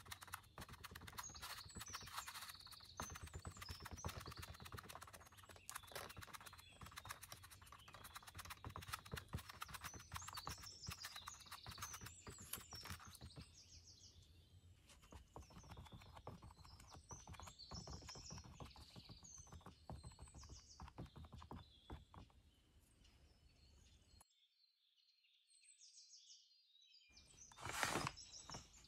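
Kitchen sponge dabbed again and again onto a stretched canvas, a quick run of soft taps and pats. A louder bump near the end as the canvas is handled.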